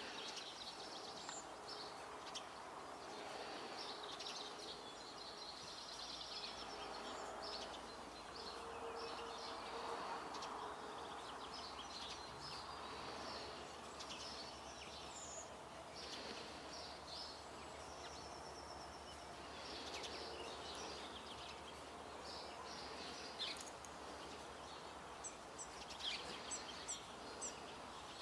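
Small birds chirping and singing over a steady outdoor background hum, with a few short, sharp sounds near the end.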